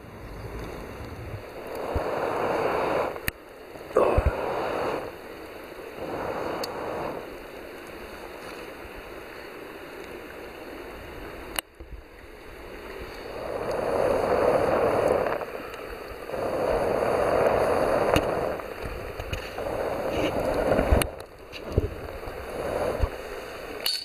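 Wood campfire in a folding steel fire stand burning down to embers, with a few sharp pops and a rushing noise that swells and fades several times.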